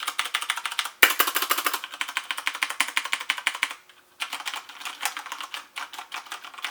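Rapid typing on a Corsair Strafe mechanical keyboard with Cherry MX Brown switches: a fast run of keystrokes with no high-pitched click, broken by a short pause about a second in and another around four seconds in.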